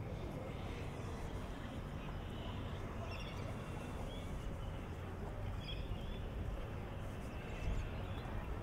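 Outdoor ambience: a steady low rumble with a few short bird chirps now and then.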